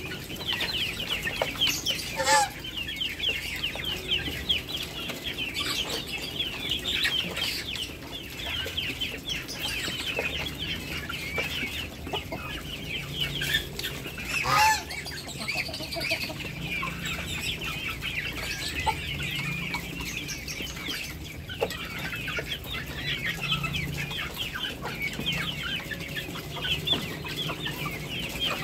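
Poultry flock of ducks, Muscovy ducks and chickens at feed, with constant rapid high-pitched peeping and clucking. Two louder calls that fall in pitch stand out, one about two seconds in and one about halfway through.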